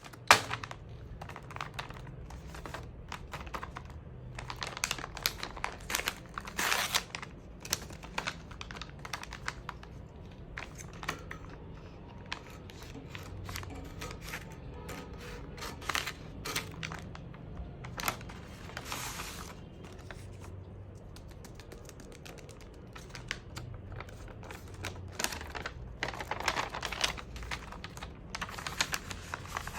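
Blind bag packaging handled and opened by hand: plastic crinkling and tearing in several longer bursts, among many small clicks and taps.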